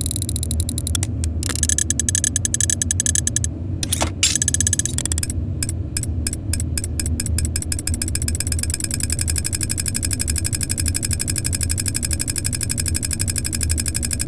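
Small metal gears and a miniature mechanism clicking and ratcheting, with a brief whirring run in the first few seconds. About five seconds in, the clicks speed up into a fast, steady ticking, as a tiny gear train spins up. A steady low rumble runs underneath.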